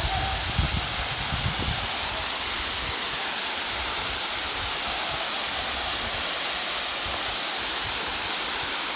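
Waterfall rushing steadily, with wind buffeting the microphone in the first two seconds.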